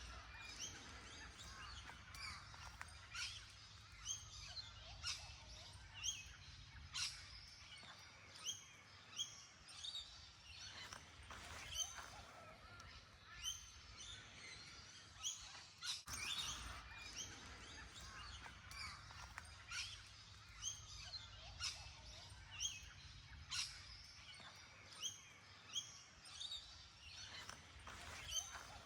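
Outdoor garden birdsong: several birds chirping and calling with many short, sharp notes repeating throughout, over a faint low background hum.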